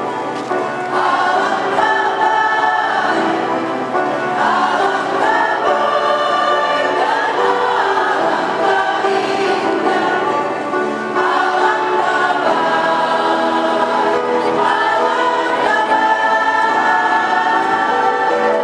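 Mixed choir of men's and women's voices singing in harmony, sustained phrases without a break.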